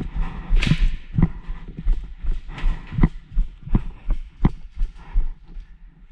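Footsteps of a walking player, about one or two a second, with gear rattling at each step and low wind rumble on the microphone.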